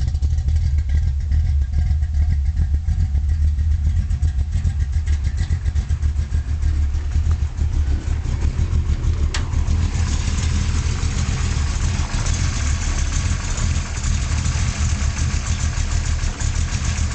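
Small-block Chevy V8 with a solid-lifter cam idling roughly through a Flowmaster exhaust, a low uneven rumble. A sharp click comes about nine seconds in, and a steady hiss runs on after it.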